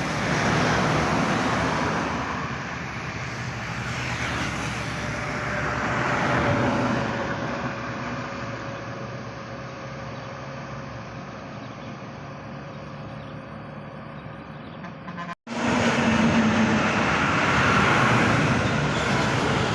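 Road traffic passing close by, buses and other vehicles: engine and tyre noise swelling and fading as each goes past. The sound drops out for an instant about fifteen seconds in.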